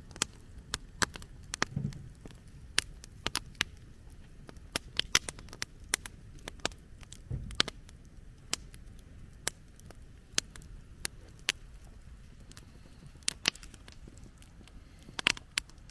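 Wood campfire crackling, with sharp irregular pops over a low steady rush of burning. Two soft low thumps come, about two seconds in and again past seven seconds.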